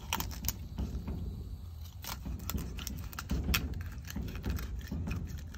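Fillet knife cutting along a bluegill on a cutting board: an irregular run of small clicks and scrapes as the blade works through the fish.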